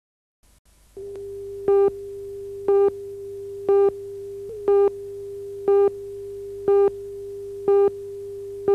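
Broadcast countdown-leader tone: a steady mid-pitched tone starts about a second in, with a louder beep once a second in time with the countdown, eight beeps in all. The tone cuts off abruptly with the last beep.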